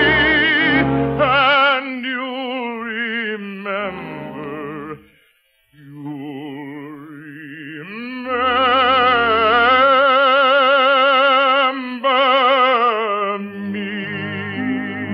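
A solo voice sings a ballad in operatic style with strong vibrato over orchestral accompaniment. It holds long notes, breaks off briefly about five seconds in, then glides up into a long, loud held note before falling to a lower phrase.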